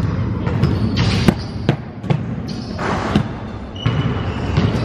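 Basketballs bouncing on a hardwood gym floor: a string of irregular thuds echoing in the hall.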